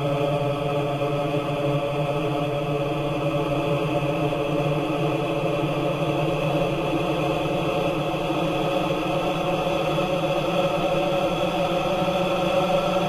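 A man's spoken "hello" stretched 100 times with Paulstretch, playing back as a steady drone of many sustained pitches with no word or break in it.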